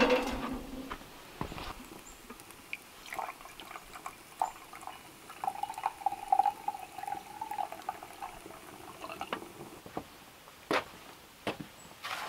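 Coffee poured from a metal enamel coffee pot into an enamel mug, a steady trickle for about two seconds, preceded by a few light clinks of the pot. The ringing of a metal pan set down on the grill fades at the very start.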